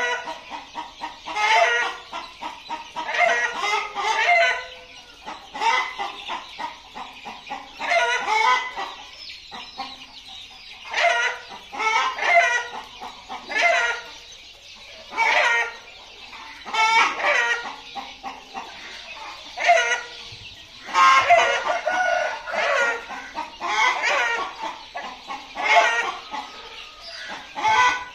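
A flock of young Kadaknath chickens clucking and calling, with loud calls coming every second or two.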